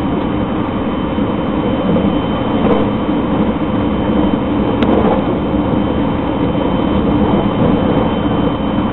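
Interior running noise of a JR 681/683-series limited express electric train at speed: a steady rumble of wheels on rail with a thin, steady high tone throughout. There is a brief click about five seconds in.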